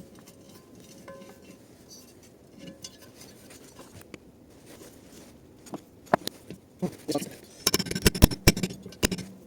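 Metal tools and engine parts clinking and knocking as they are handled, quiet at first, then a quick run of sharp clinks and knocks in the second half.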